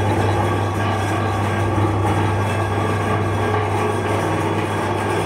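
Electric meat grinder's motor running steadily with a constant hum, the auger turning with nothing being fed in.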